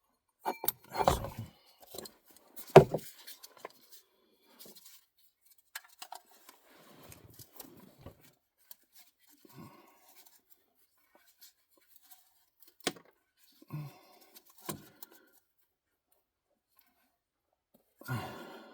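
Scattered small metallic clicks, clinks and knocks of tools and parts being handled during an oil change. The sharpest knock comes about 3 s in, and the sounds grow sparse and stop near the end.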